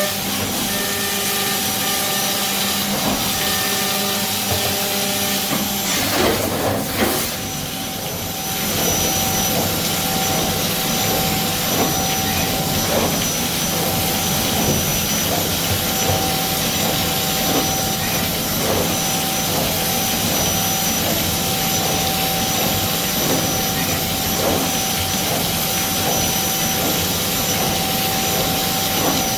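CNC milling machine cutting parts: a steady whine from the spindle with several fixed tones over a constant hiss, with a short change in the sound about six to eight seconds in.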